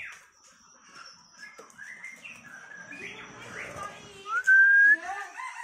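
Songbirds chirping and whistling in short scattered notes. About four seconds in comes one clear, rising whistle, the loudest sound.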